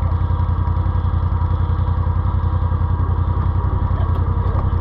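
ATV engine running steadily at an even speed, a constant low hum with no revving. A few faint clicks near the end.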